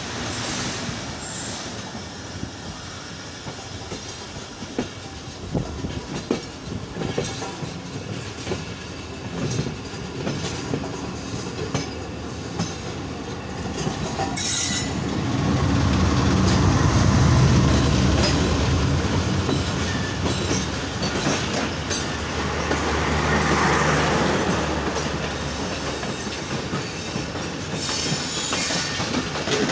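Pakistan Railways diesel locomotive and passenger coaches passing close on the next track. Wheels click over the rail joints for the first half. About halfway in the locomotive's engine comes up loud and low as it draws alongside, and then the coaches roll by with clickety-clack and some wheel squeal.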